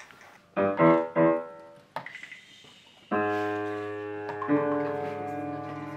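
Piano chords. A few short notes come first. About three seconds in, a sustained chord starts and rings with a slow fade, and it moves to a new chord about a second and a half later.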